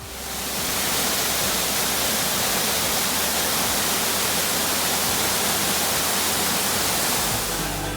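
A waterfall's falling water: a steady, even rush that swells in over about the first second.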